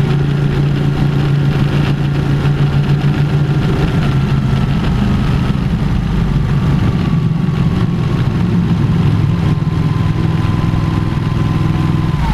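Sport motorcycle engine running steadily at low cruising speed inside a long road tunnel, with a faint whine that slowly falls in pitch. The bike comes out into open air near the end.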